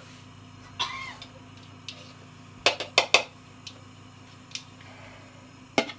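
Kitchen utensils and containers being handled: a scattering of sharp clicks and knocks, with a quick cluster of three loud ones about halfway through, over a steady low hum.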